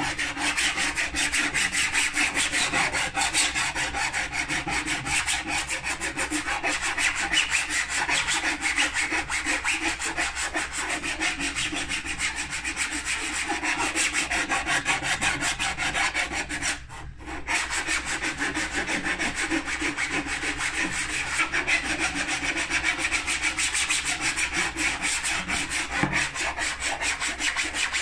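Hand file scraping back and forth over the welded seam of a 3D-printed plastic IOM model yacht hull, fast continuous strokes smoothing the joint between the printed sections, with one brief pause a little past halfway.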